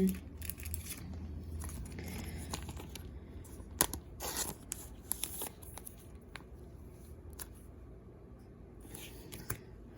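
Trading cards and their packaging being handled: scattered rustling, light scraping and small clicks, busiest about four seconds in and sparser toward the end.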